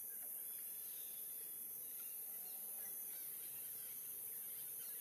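Forest ambience: a steady high-pitched insect drone with faint, scattered bird calls.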